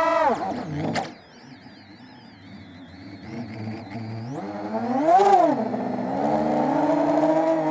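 Freestyle FPV quadcopter motors whining, their pitch swinging sharply up and down with the throttle. The pitch peaks at the start and falls away about a second in, swells again around five seconds, then settles into a steady higher whine.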